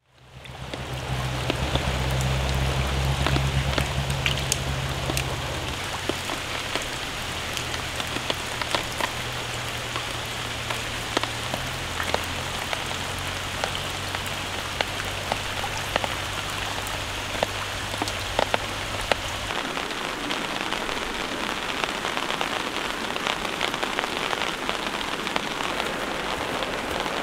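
Steady rain falling on wet ground and leaves, with many small drops ticking. It fades in at the start, and a low rumble runs under it, strongest in the first few seconds and gone by about two-thirds of the way through.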